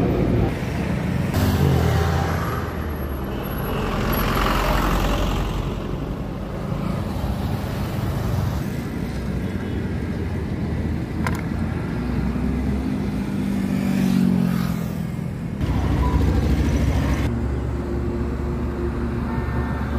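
Motor vehicle engines and road traffic running, in several spliced segments that change abruptly at the cuts.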